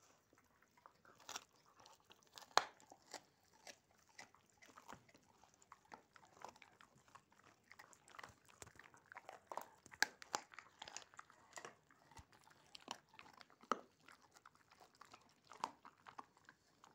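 Dogs gnawing raw meaty bones: irregular crunching and biting as teeth work through the meat and bone, with the loudest crunch about two and a half seconds in.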